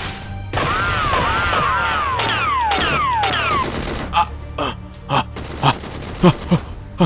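Dubbed action sound effects over background music. First comes a warbling tone that rises and falls three times, then several quick falling-pitch whistles. Over the last three seconds there are about seven separate gunshot effects.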